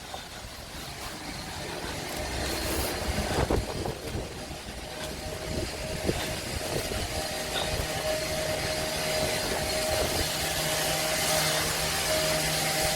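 A motor vehicle's engine growing steadily louder, with a steady hum setting in from about halfway through, over a noisy wash of street and wind sound.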